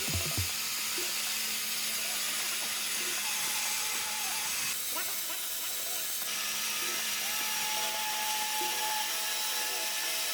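Steady machine noise of wood-processing equipment at work, an even hiss over a faint low hum, with a few brief faint whistling tones.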